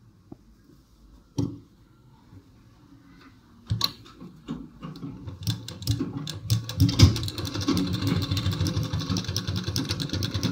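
Black domestic straight-stitch sewing machine stitching cotton bedsheet fabric. A single knock comes about a second and a half in and a few clicks follow. From about halfway through, the machine runs steadily with a rapid, even ticking of the needle.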